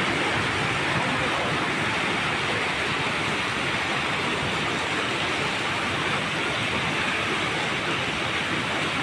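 Muddy river in flood rushing and churning: a steady, dense rush of fast water that does not let up.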